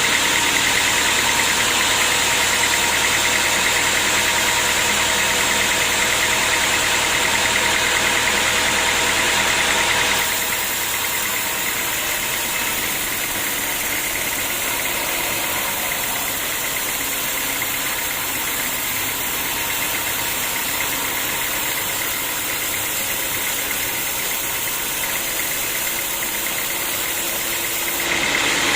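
Sawmill machinery running steadily, with a constant whine; it drops a little in level about a third of the way in and comes back up near the end.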